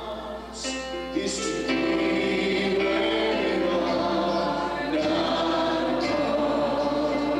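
A church congregation singing together as a choir, in a gospel-style worship song, swelling louder about a second and a half in.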